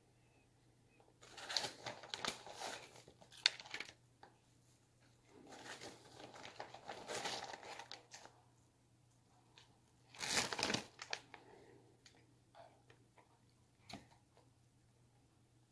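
Snack packaging crinkling as it is handled, in three bursts of rustling a few seconds long, the last one shortest, with a few faint clicks in between.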